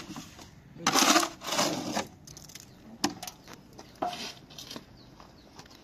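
Steel shovel scraping and scooping wet mortar in a metal wheelbarrow: two rough scraping strokes about a second in, followed by a few light knocks.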